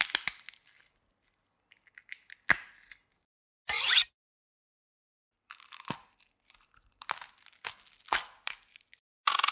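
Kitchen knife cutting on a chopping board: a string of separate short crunchy slices and chops, several ending in a sharp knock of the blade on the board, with dead silence between them.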